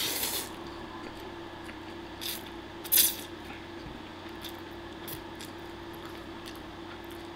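Spaghetti being slurped off a fork in short bursts: one at the start, a smaller one about two seconds in, and the loudest about three seconds in. A steady low hum runs underneath.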